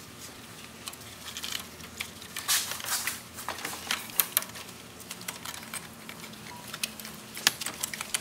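Scattered light clicks, taps and short scrapes of gloved hands pressing down a serpentine belt tensioner and working the belt onto an idler pulley. A few sharper clicks come about two and a half, four and seven and a half seconds in.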